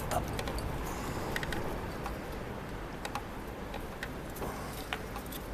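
Scattered light clicks and taps, a few per second at irregular intervals, from hand tools and parts being handled during motorcycle repair work, over a steady low background hum.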